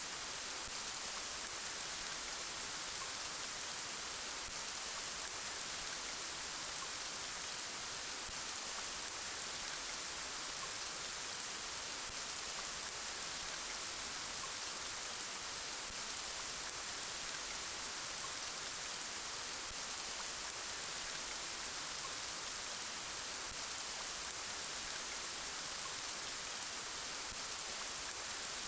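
Steady rainfall: an even hiss of rain with faint scattered drop ticks, unchanging in level.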